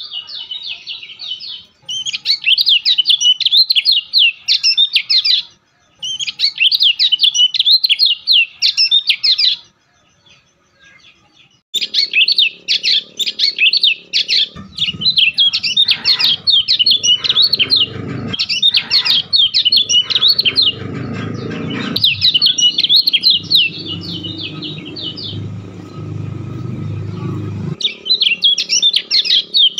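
A songbird singing a fast, chattering warble in phrases a few seconds long, with short pauses between them. A low hum runs underneath through the middle of the song for about fifteen seconds.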